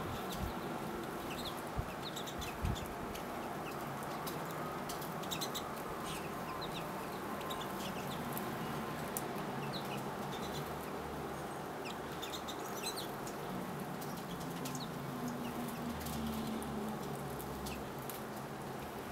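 Small finches, pine siskins and goldfinches, giving short, high chirps again and again over a steady low background hum, with two soft low thumps about two and three seconds in.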